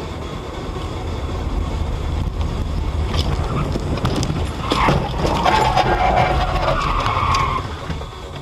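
Car driving with steady engine and road noise that grows louder, then in the second half several sharp knocks and a loud rasping noise lasting about three seconds as a car cuts close across in front; it drops away near the end.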